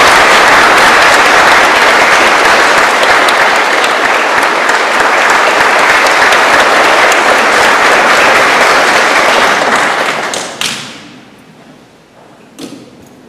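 Congregation applauding steadily, the clapping dying away about ten seconds in; a single knock follows near the end.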